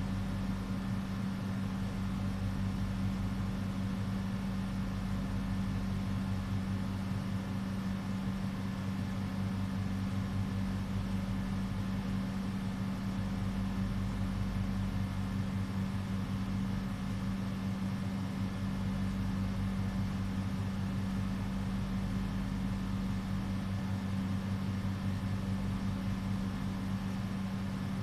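A steady low hum, one strong low tone with fainter tones above it, unchanging in pitch and level.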